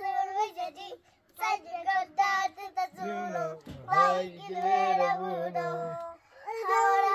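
Young children singing in high voices, with long held notes and short breaks between phrases; a lower voice sounds along for about three seconds in the middle.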